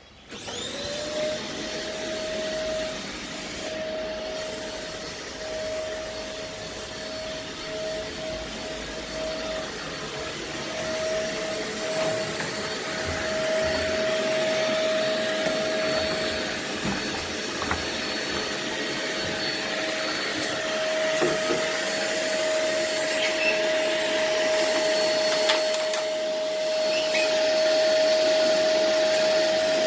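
A vacuum cleaner switched on and spinning up, then running steadily with a constant whine, growing gradually louder as it works over plastic artificial grass.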